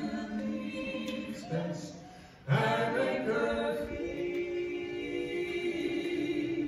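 A small southern gospel vocal group singing in close harmony, holding long notes. The singing dies away about two seconds in, and a new phrase starts half a second later and settles into a long held chord.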